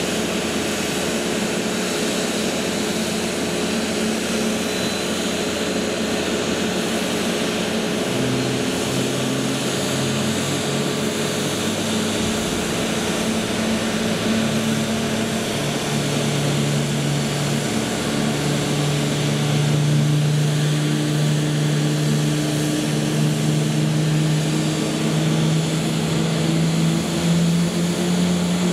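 Airbus A320neo jet engines running at low power: a steady whining hum whose low tones climb in pitch from partway through and keep rising slowly to the end.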